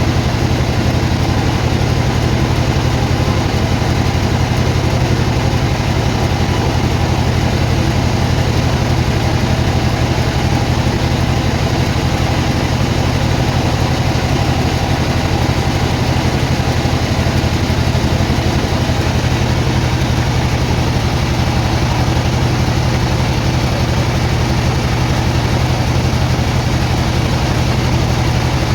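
Sawmill machinery running steadily: a constant low engine drone that holds the same pitch and level throughout.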